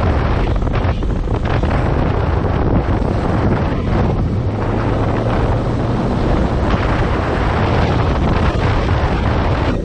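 Heavy wind noise on the microphone of a moving motorcycle, with the 2015 Yamaha FZ6R's engine running steadily underneath.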